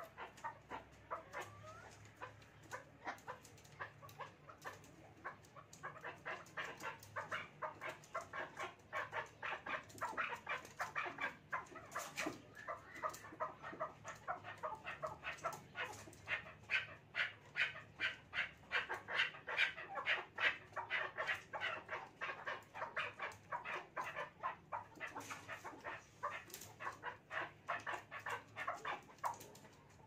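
Chukar partridges calling: a long run of rapid clucking 'chuck' notes, a few a second. It builds up and is loudest past the middle, then eases off near the end.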